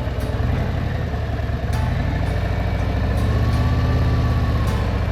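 Harley-Davidson V-twin motorcycle engine running at a steady pace under way, its low pulsing exhaust note getting a little louder about two seconds in.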